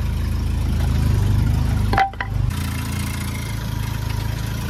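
1989 Volkswagen Cabriolet's four-cylinder engine idling steadily. About two seconds in there is a brief sharp click with a short high tone, and the idle then sounds somewhat different.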